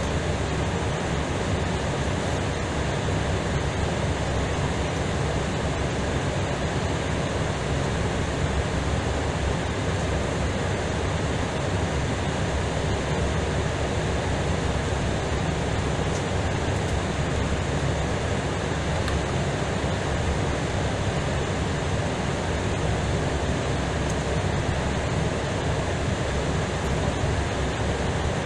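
Steady rushing noise in an Airbus A320ceo cockpit while the jet taxis, with a faint low hum under it and no change in level.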